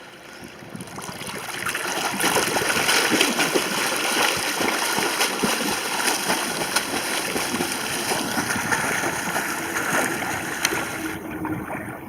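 A swimmer doing front crawl in calm sea water, arms pulling through the water and legs kicking, making steady continuous splashing. The splashing builds over the first two seconds and eases off near the end.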